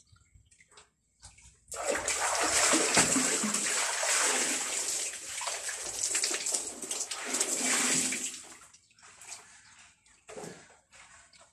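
Water streaming and splashing onto the floor as a wet cloth is wrung out by hand, for about six seconds starting near two seconds in. A few short, quieter handling sounds follow near the end.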